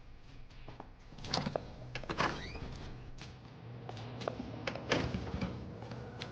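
A few scattered knocks and clicks, busiest one to two and a half seconds in, with a brief rising squeak among them.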